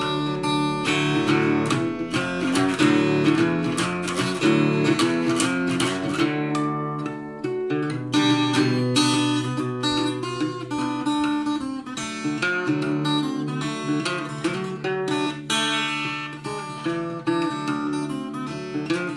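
Small-bodied parlour acoustic guitar fingerpicked in a blues style: an instrumental break between sung verses, with bass notes under quick plucked treble notes.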